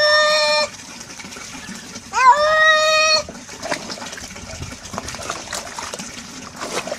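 Tabby cat giving two long, loud meows that sound like 'Raúl' while being washed. The first ends just under a second in, and the second starts about two seconds in and lasts about a second. Each rises at the start and then holds one pitch. Water splashes in a plastic bucket between and after the calls.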